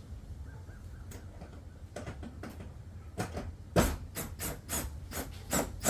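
A socket on an extension tightening a bolt: a run of sharp, evenly spaced clicks, about four a second, starting a little after three seconds in and getting louder.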